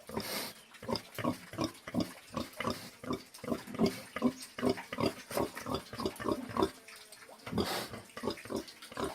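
Pig grunting in quick, short grunts, about three or four a second. Two brief breathy rushes of noise break in, one just after the start and one about three quarters of the way through.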